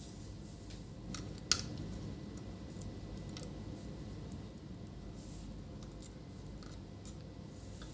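A few light clicks and taps of small parts and tools being handled on a workbench, the loudest about one and a half seconds in, over a low steady hum.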